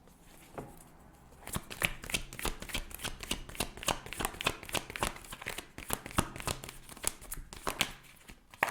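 Tarot deck being shuffled by hand: a quick, dense run of card clicks and riffles that starts about a second and a half in and stops shortly before the end.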